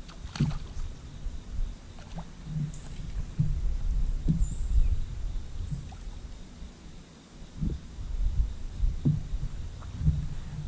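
Movement on a bass boat's deck while an angler sets the hook and brings in a small bass: a low, uneven rumble with irregular thumps, and a sharp click about half a second in.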